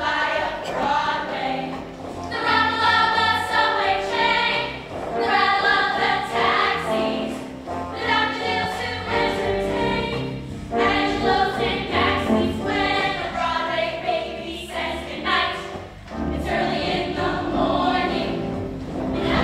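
High school show choir singing a song together.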